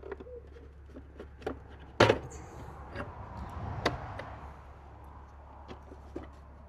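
Knocks and clicks of intake parts being handled and worked loose in an engine bay, with a loud knock about two seconds in and another sharp one near four seconds, and a brief rustle between them.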